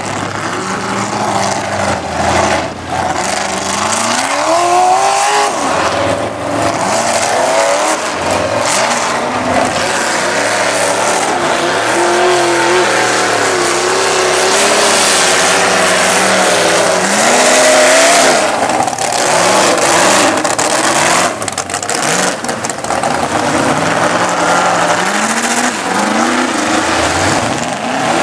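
Lifted 4x4 pickup truck engines revving hard, the pitch repeatedly climbing and dropping, as the trucks drive through a mud bog with their tyres churning through the mud.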